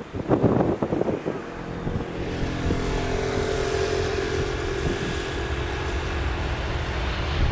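Jet engines of an Airbus A330-200F, Rolls-Royce Trent 700s, on its landing arrival. Wind gusts buffet the microphone for the first second or so, then the engines' steady whine with a few held tones takes over from about two seconds in.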